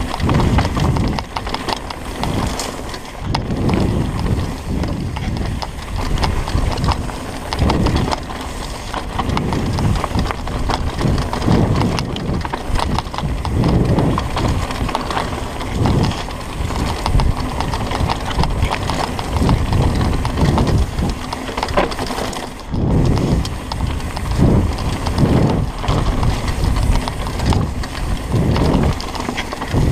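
Mountain bike riding fast down a dirt singletrack, heard from a camera on the rider: the bike clattering and knocking over bumps, over uneven rumbling surges of tyre and wind noise.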